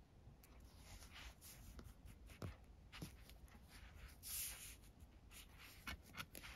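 Near silence with faint handling sounds of nylon paracord: a few light clicks and a brief rustle about four seconds in as the cord is laid down on a cloth.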